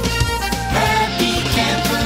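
Music with held notes over a steady low bass line.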